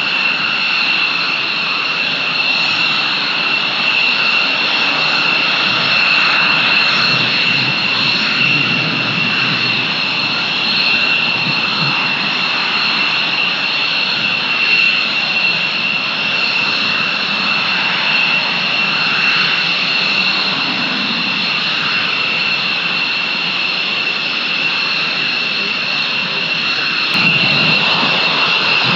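Jet engines of a Panavia Tornado IDS, its twin RB199 turbofans, running loud and steady with a high, even whine over the jet noise.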